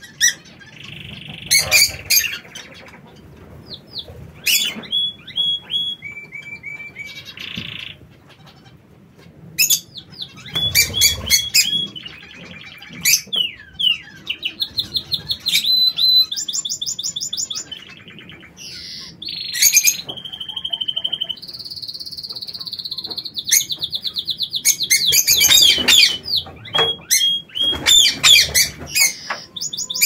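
Birds of a mixed lovebird and quail aviary chirping and calling over one another: short chirps, held whistled notes and quick chattering trills, busiest near the end.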